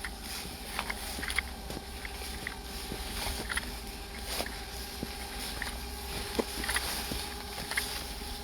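Scattered light footsteps and small crackles on a forest trail, over a steady low hum with a faint steady whine.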